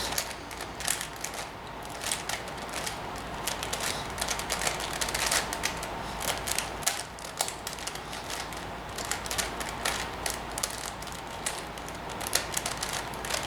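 5x5 Rubik's cube (Professor's cube) being turned by hand: quick, irregular clicking and clacking of its plastic layers as the final moves of the solve are made.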